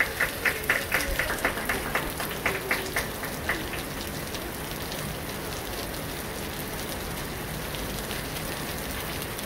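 Heavy rain falling steadily as an even hiss. A quick run of short taps, about four a second, sounds over it for the first three or so seconds.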